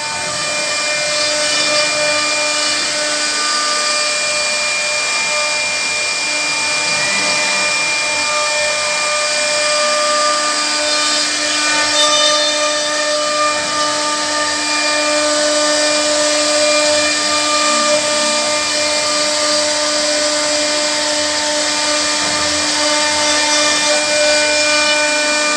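1325 CNC router spindle carving a wooden door panel: a steady whine of several fixed tones over the rasp of the bit cutting wood.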